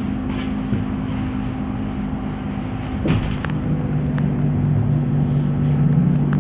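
Interior of a ZiU-682G-012 trolleybus getting under way: a steady electrical hum with road rumble, a click about three seconds in, then a second, lower hum joining.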